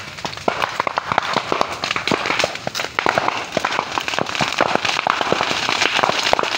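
A large fire burning through Chinese bamboo, crackling with rapid, irregular sharp pops and cracks.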